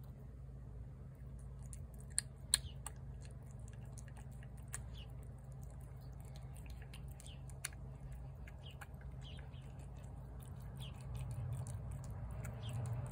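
A cat eating wet food from a plate, with soft, irregular chewing and smacking clicks and two sharper clicks about two seconds in.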